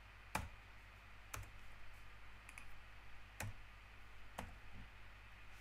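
Four separate sharp clicks, about a second apart, from the computer's mouse and keyboard as an exponent is entered in an equation editor, over a faint steady low hum.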